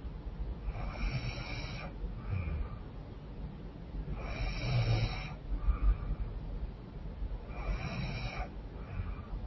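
A woman snoring through a congested, runny nose: three slow, even breaths, each a longer noisy snore followed by a shorter, softer one.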